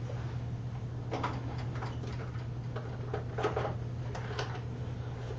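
Scattered light clicks and taps of small tools and parts being handled on a steel workbench, over a steady low hum.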